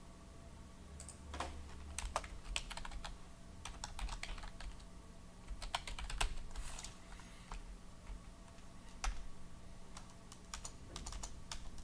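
Typing on a computer keyboard: irregular runs of keystroke clicks, over a faint steady hum.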